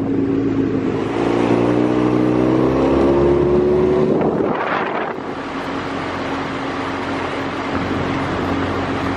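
Outboard motor on a small boat revving up, its pitch rising over a few seconds as the boat speeds up. About halfway through there is a brief rush of noise, and the motor then settles into a steady lower hum.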